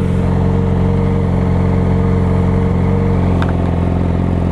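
Yamaha R6 inline-four engine running at steady revs through a new Akrapovic exhaust, a smooth even tone that holds the same pitch.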